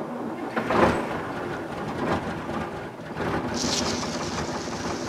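A truck's engine cold-starting in frost: it catches suddenly and then runs steadily. About three and a half seconds in, the windscreen wipers scrape snow off the glass.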